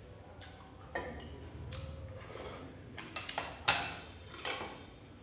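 Chopsticks clinking and scraping against a stainless steel pot and ceramic tableware, with a cluster of sharper clicks and knocks about three to four and a half seconds in as the chopsticks are set down.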